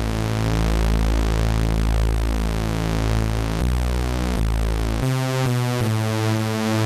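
Ableton Operator synthesizer playing a supersaw lead: three sawtooth waves, one centred and two detuned a few hertz above and below, beating against each other. It holds a long low note, then a second note, and from about five seconds in plays short notes in quick succession.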